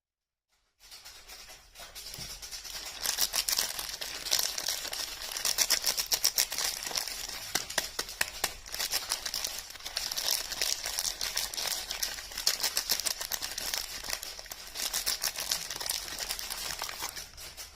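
Soap packaging being handled and unwrapped close to the microphone: a dense run of crinkling, crackling and tearing. It starts about a second in and eases off near the end.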